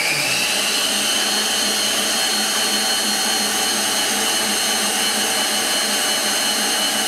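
Electric stand mixer running, beating butter and sugar in a stainless steel bowl: a steady motor whine that rises slightly in pitch in the first half-second, then holds level over a whirring hum.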